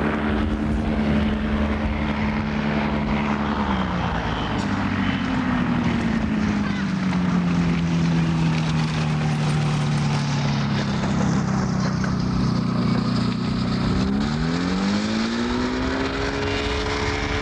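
Ultralight trike's propeller engine running steadily, then throttled back about 4 s in so its note sinks and stays low while it lands and rolls on a dirt airstrip. About 14 s in the throttle opens again and the note climbs sharply.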